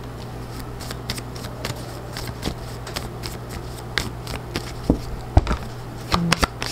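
A deck of oracle cards being shuffled by hand: a run of soft card flicks and taps, with a few sharper slaps near the end, over a low steady hum.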